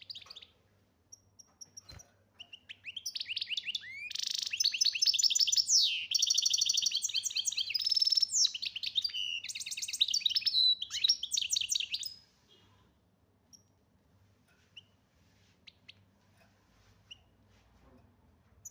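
European goldfinch singing: a fast, loud run of varied trills and repeated notes that starts about two seconds in and lasts nearly ten seconds, then only a few faint scattered chirps.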